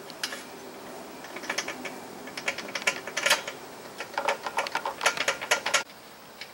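Ratchet wrench clicking in three runs of quick clicks as the bolts holding a handle onto the frame of a small air compressor are tightened.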